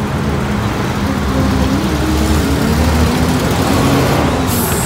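Vehicle engine running in slow stop-and-go traffic: a steady low rumble whose pitch rises and falls, with a short hiss near the end.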